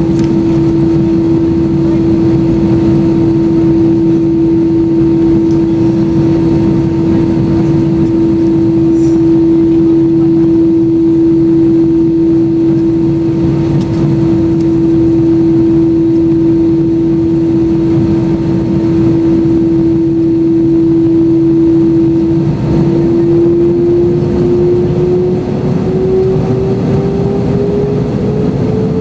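Airbus A321-200 jet engines heard inside the cabin: a steady whine over a low rumble, which rises in pitch about 22 seconds in as the engines spool up.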